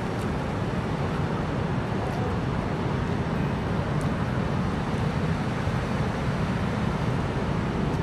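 Steady, low rumbling noise of wind and shallow seawater washing over sand at the water's edge.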